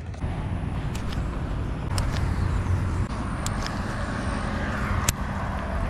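Road traffic passing on an adjacent road: a steady rumble, with tyre and engine noise swelling over a few seconds and then dropping away. A few sharp clicks are heard over it.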